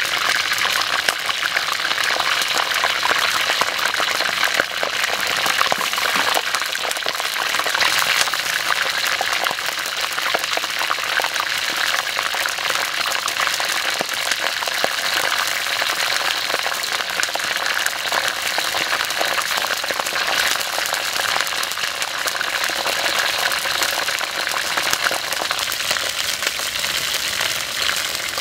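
Whole frogs deep-frying in bubbling hot oil in a steel wok: a steady, crackling sizzle.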